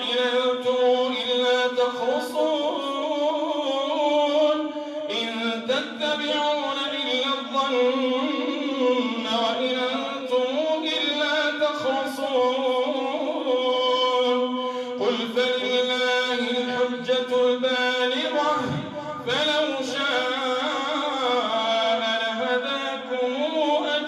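A solo male imam reciting the Quran in a long, melodic chant into a microphone, leading Taraweeh prayer. One voice holds drawn-out, wavering notes, with short pauses between phrases.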